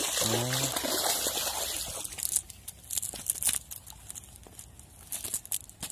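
Water splashing and sloshing, loudest and most continuous in the first two seconds, then small scattered splashes and drips.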